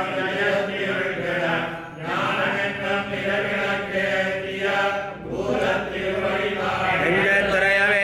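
A Tamil devotional hymn being chanted in a melodic, sustained style, the voice holding long wavering notes with short breaks between phrases.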